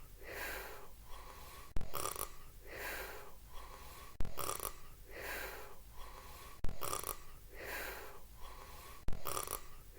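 Cartoon snoring sound effect repeating in an even loop, one snore about every two and a half seconds. Each snore opens with a sharp click and runs on as a long airy breath.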